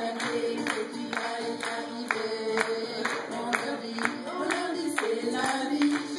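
A small group of women singing a song together, one of them on a microphone, over backing music. A steady beat of sharp strikes comes about twice a second.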